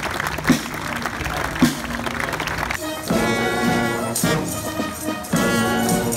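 Marching snare drums beating about once a second while a crowd claps and cheers; about three seconds in, a brass band takes over, playing sustained chords with tambourines struck in time.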